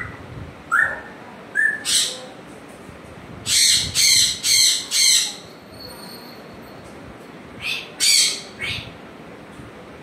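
African grey parrot calling: two short rising whistles, then a run of four loud, harsh squawks about two a second, and a few more squawks near the end.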